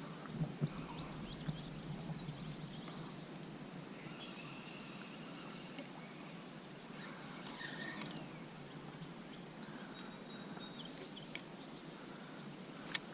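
Faint outdoor ambience with small birds chirping now and then, and two sharp clicks near the end.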